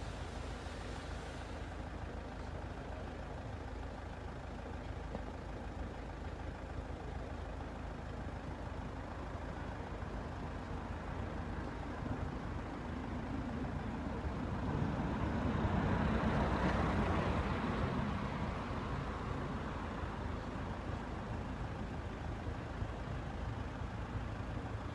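Steady low rumble of traffic, with one vehicle passing that grows louder to a peak about two-thirds of the way through and then fades away.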